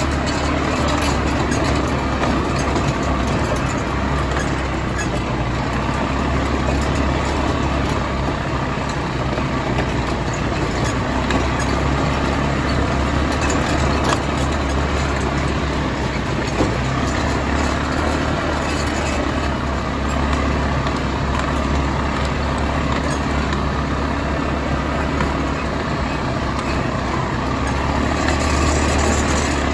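Quad bike (ATV) engines running steadily as several ATVs ride along a dirt trail. A constant low engine hum sits under a steady wash of driving noise.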